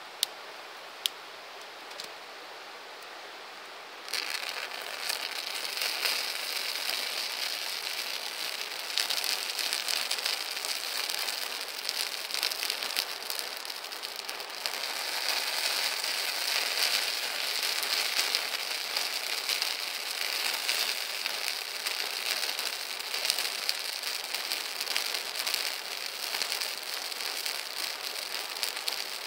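Campfire crackling and hissing. At first there are a few sharp pops over a soft hiss; about four seconds in, the crackle turns suddenly louder and denser, a constant fine popping of burning wood.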